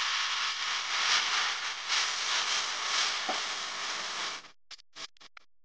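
Steady airy hiss of a hot-air rework gun blowing, as used to heat the chip during CPU reballing. It cuts off suddenly about four and a half seconds in, followed by a few short broken bursts.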